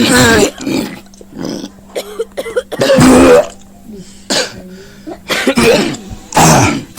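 A person coughing and clearing their throat in about six separate hard, rough bursts, the loudest about three seconds in.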